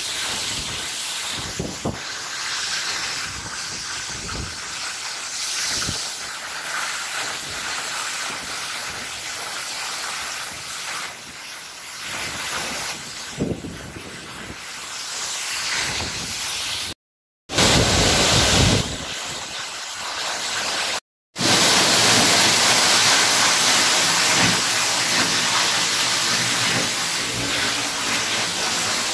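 Rushing water of the Giessbach mountain stream and waterfall: a steady hiss of falling and tumbling water, louder for the last third. The sound cuts out twice for a moment.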